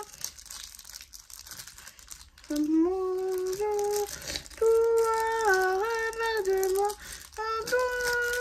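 A woman humming a tune in held notes that step up and down, starting about two and a half seconds in. Before that, a plastic sticker-packet wrapper crinkles quietly in her hands.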